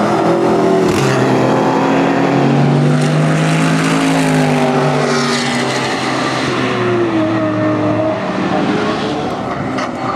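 Several GT race cars driving past one after another, their engines loud and at high revs, the engine notes rising and falling in pitch as they change gear and go by.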